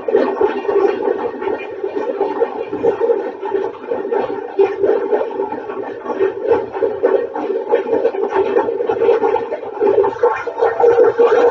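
Steam locomotive 7470 working hard, its exhaust chuffing in a quick, uneven beat. It sounds boxy and dull, as if played back through a television speaker in a room.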